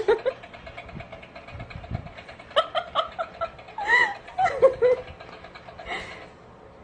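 A small motor buzzing steadily, the battery-driven toy hand clinging to the cat's back, stopping about six seconds in. Over it a person laughs in several short bursts.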